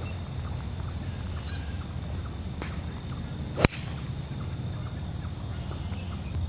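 A golf club striking the ball on a tee shot: a single sharp crack about three and a half seconds in, over a steady low background rumble.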